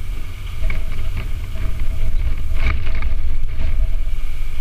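Low rumble of wind buffeting the microphone, growing louder, with a few light knocks, the clearest about two and a half to three seconds in.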